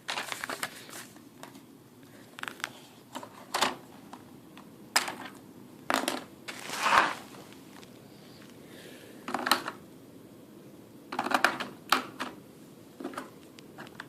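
Scattered plastic clicks and short rustles of a wireless keyboard being handled while a battery is fitted into it, with a longer rustle about seven seconds in.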